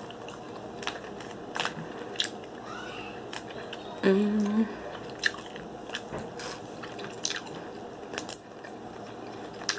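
Close-up eating sounds: sharp cracks and clicks from hard Dungeness crab claw shells being broken open, with chewing. A short hummed voice sound, the loudest moment, comes about four seconds in.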